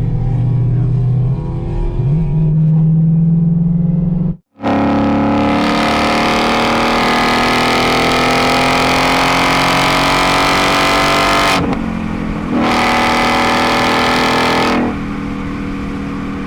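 Car engines revving hard as the cars accelerate away. The sound cuts off abruptly about four seconds in and comes back as one loud engine note climbing slowly in pitch, which breaks near twelve seconds, resumes, then drops lower near the end.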